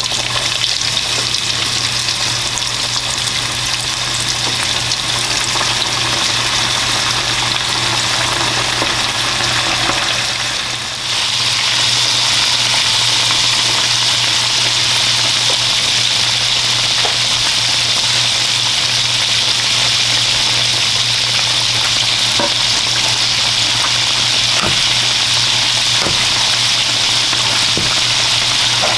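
Flour-coated chicken pieces deep-frying in hot oil in a pot: a steady sizzle of bubbling oil. About eleven seconds in it dips briefly, then comes back louder and brighter, with a steady low hum underneath and a few faint clicks later on.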